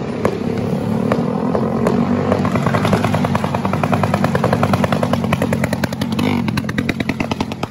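Fireworks crackling and popping in a rapid, fairly even string of sharp bangs that grows denser about two and a half seconds in, over a steady low hum.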